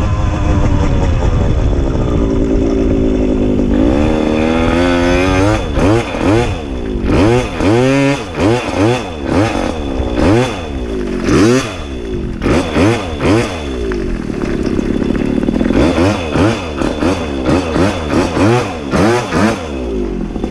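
Puch Maxi moped's small two-stroke single-cylinder engine, its pitch falling over the first few seconds, then revved up and down in quick repeated blips about once or twice a second, with a steadier stretch about two-thirds of the way in. Wind rumbles on the microphone underneath.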